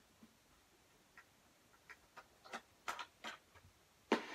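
Faint, irregular light clicks and taps of equipment being handled, a handful spread over the last three seconds, the loudest near the end.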